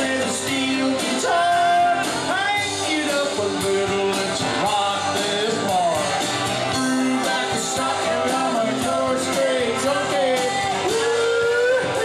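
A man singing karaoke into a handheld microphone over a backing track, his voice holding notes and bending in pitch.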